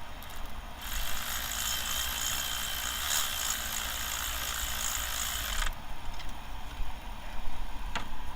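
A steady hiss lasting about five seconds that starts and cuts off abruptly, with a faint high whistle in it, over a low background rumble; a single sharp click near the end.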